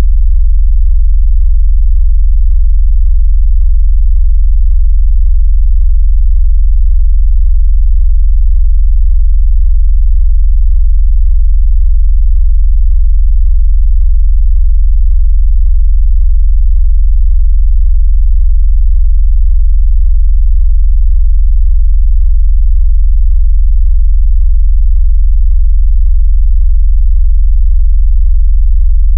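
A loud, steady, very deep synthesized bass tone with nothing else on it. It is a 'vibration' tone made to make a phone buzz, push water out of its speaker, or test a speaker's bass.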